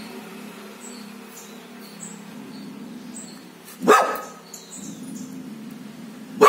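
Dog barking: two single loud barks, one about four seconds in and another at the very end.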